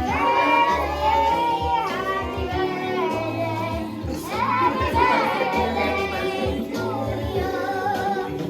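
Background music: a song with a sung vocal line over a steady bass.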